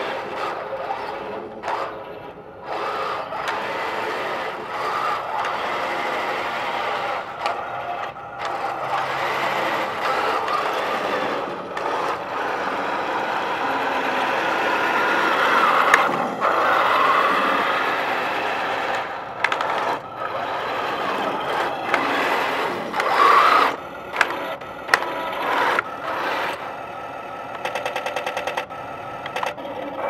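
Electric drive motors and gearboxes of a homebuilt wooden 1:16 RC Maus tank with a Heng Long electronics set, whirring steadily as it drives, loudest about halfway through as it comes close. In the last third the sound stops and starts in short bursts, and near the end there is a fast, even rattle.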